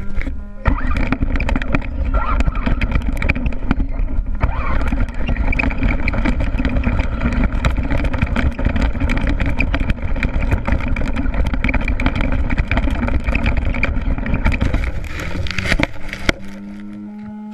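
Redcat Racing RC stadium truck's motor running hard as the truck drives over grass and leaves, close to the motor, with the rattle and knocks of the chassis and tyres on rough ground. About a second before the end it drops to a quieter steady hum as the truck slows or stops.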